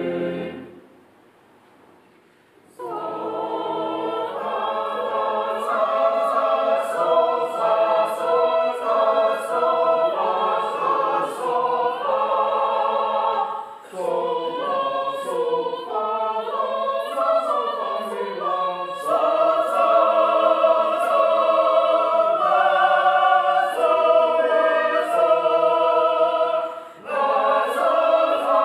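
Choir of mixed voices singing a shape-note hymn in harmony. A held final chord ends just after the start and there is a pause of about two seconds. The choir then enters together and sings on, with short breaks between phrases near the middle and near the end.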